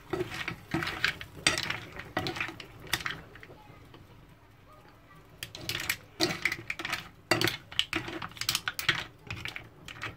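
Metal spoon stirring mussels in a pan: irregular clacks of the shells knocking against each other, the spoon and the pan, with a quieter pause a little past the middle.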